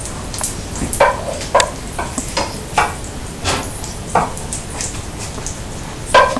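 A cooking utensil clinking and scraping against hot metal cookware in irregular knocks, the loudest near the end, over a steady hiss of food sizzling.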